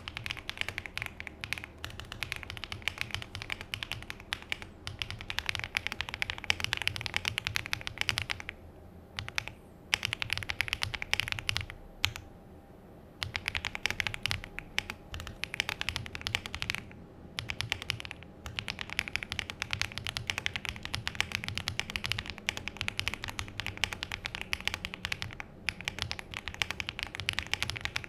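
Fast typing on a mechanical keyboard fitted with HMX Poro switches: a dense run of key clacks, broken by two short pauses, about nine and twelve seconds in.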